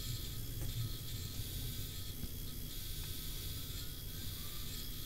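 Belt grinder running with a 1070 steel sword blade held against the belt: a steady hiss of the abrasive on the steel over a low motor hum.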